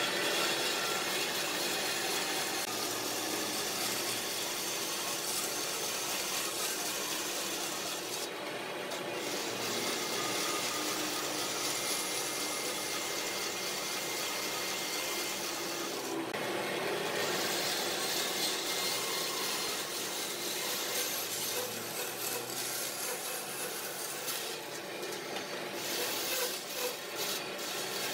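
A tool abrading or cutting wood in one steady run, with brief breaks about 8 and 16 seconds in and stop-start strokes near the end.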